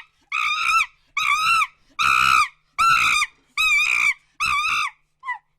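An animal calling repeatedly: seven short, high-pitched calls of about half a second each, roughly one every 0.8 seconds, each rising then falling in pitch, with a brief final call near the end.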